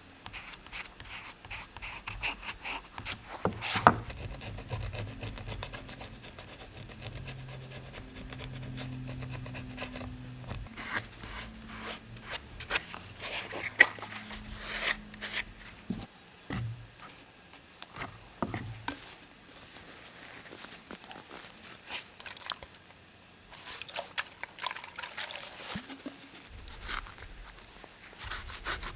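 Hand rubbing and scraping strokes on a bicycle saddle, irregular, with scattered clicks and two sharp knocks, one about four seconds in and one near the middle.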